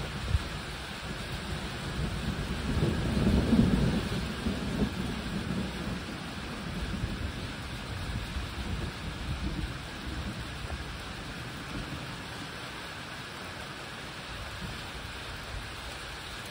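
Rolling thunder that builds over a couple of seconds to a peak about three and a half seconds in, then dies away over the next several seconds, under a steady hiss of rain.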